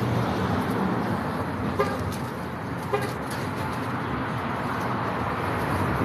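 Street traffic running steadily, with two short vehicle-horn toots about a second apart, around two seconds in.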